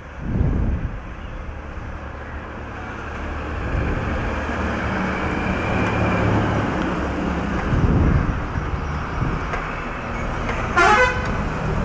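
Road traffic passing, with engine rumble that grows louder after a few seconds, and a short vehicle horn toot near the end.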